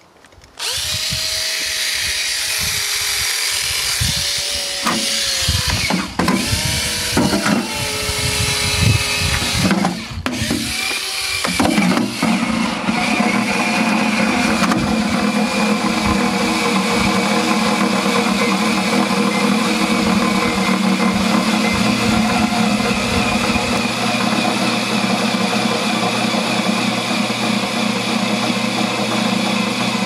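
A JobMate 19.2-volt cordless drill runs in spurts for roughly the first ten seconds, its motor whine rising and falling in pitch. Then a microwave oven starts and runs with a steady hum.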